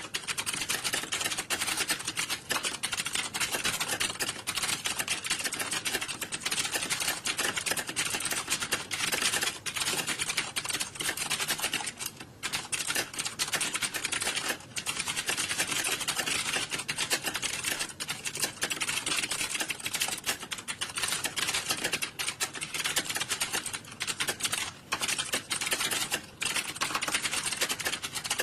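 Many computer keyboards being typed on at once, a dense, continuous clatter of overlapping key clicks with a couple of brief lulls.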